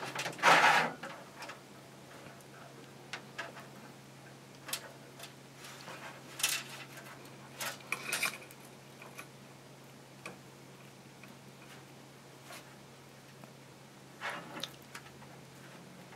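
Scattered small clicks and rustles of heat-shrink tubing and braided cable sleeving being handled and slid along a thin LED cable, over a steady low hum.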